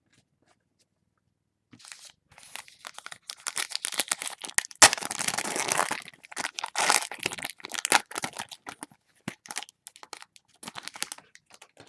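Foil wrapper of a Panini Prestige football card pack being torn open and crinkled. It starts about two seconds in, with irregular crackles and rustles that are loudest around the middle, where there is one sharp crack.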